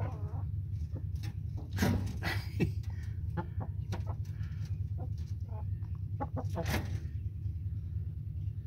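Chickens clucking, with short sharp calls here and there, the loudest a little under two seconds in and near the end, over a steady low hum.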